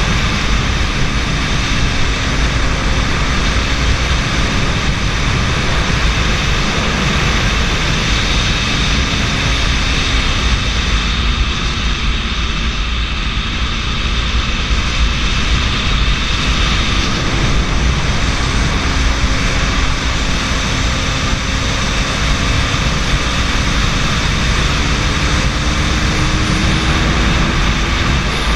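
Wind rushing over the microphone on a moving KTM RC 200 motorcycle, over the steady drone of its single-cylinder engine at cruising speed. The engine pitch drifts slowly down and back up, rising again near the end.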